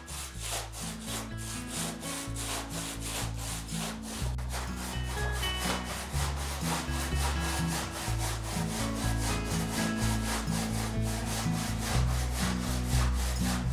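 Handsaw cutting through a stone wall in fast, even back-and-forth strokes, going through the stone easily, like butter. Background music with a bass line plays underneath.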